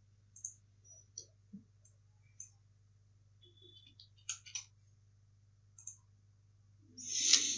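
Computer mouse clicking, a handful of faint, scattered clicks over a low steady hum. Near the end a much louder hissing noise rises.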